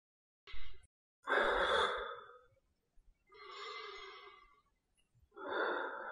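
A man breathing out in long sighs through a nebulizer mask: three slow breaths, the first the loudest, with a short noisy burst just before them.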